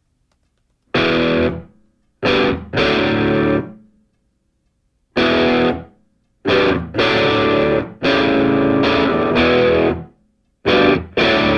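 Intro music on distorted electric guitar: loud chords struck in short stop-start blasts, each cut off or fading into silence before the next.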